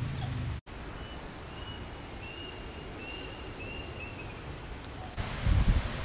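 Outdoor ambience: a steady high-pitched tone and a run of short bird chirps over a light hiss. About five seconds in it cuts to wind rumbling and buffeting on the microphone.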